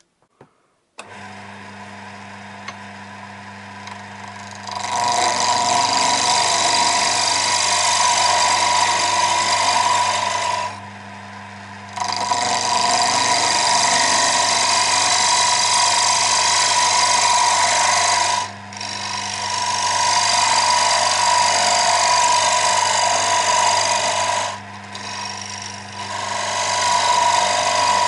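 A lathe's motor starts about a second in and runs steadily, then a tool cuts the spinning wooden dodecahedron blank, loud for several passes with short breaks between them. The faceted workpiece gives a very interrupted cut.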